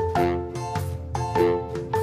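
Background music: a melody of short pitched notes, about three a second, over a steady low bass.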